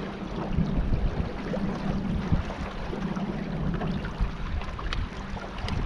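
Boat under way on water: a steady low hum with wind and water noise, and a few light knocks.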